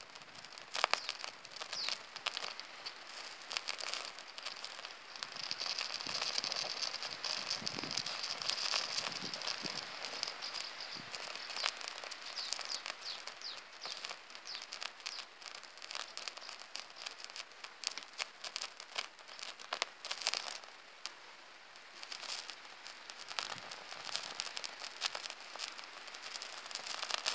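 Small firelighter flame crackling with a steady hiss and many scattered sharp pops. The hiss is strongest for several seconds in the first half.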